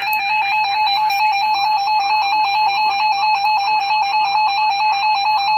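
Emergency Alert System attention tone: a loud, steady two-tone electronic warble, alternating rapidly between two close pitches, sounded to announce a new weather warning.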